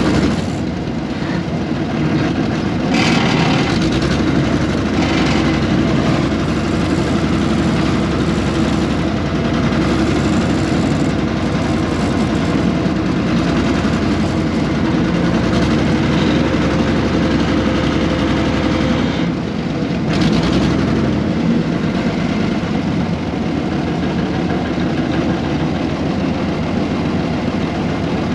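Air-cooled Deutz diesel engine of a 1970s excavator running steadily, with a few brief louder, noisier surges about three seconds in and again around twenty seconds.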